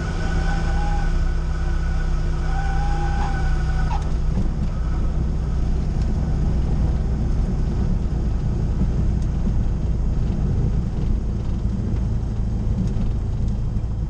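Cessna 172's piston engine and propeller running at low power, heard inside the cabin through the landing roll-out, with steady rumble from the wheels on the runway. A thin wavering tone sounds over the first four seconds.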